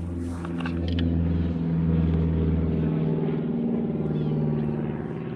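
An engine running steadily, its pitch rising a little and then easing down about three seconds in.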